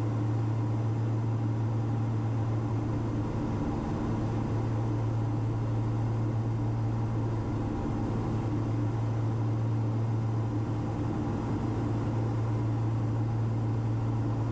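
Steady cabin drone of a Cessna 340's twin piston engines and propellers in flight: an even low hum with a few steady tones above it.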